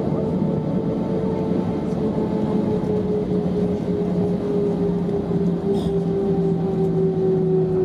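Airbus A320-214's jet engines heard from inside the cabin: a steady hum with two tones that sink slowly in pitch as the aircraft rolls along the wet ground.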